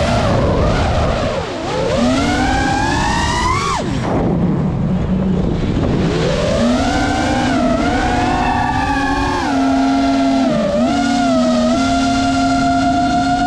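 Brushless motors and propellers of a 5-inch FPV racing quadcopter whining, heard through the onboard GoPro. The pitch climbs for a few seconds, drops sharply about four seconds in, rises again a couple of seconds later and then holds fairly steady with small wobbles, following the throttle.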